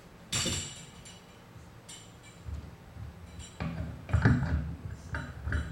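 Handheld microphone being handled and knocked against a mic stand, heard through the PA: a brief rustle near the start, then a run of low thumps and clicks, the loudest a little after four seconds in.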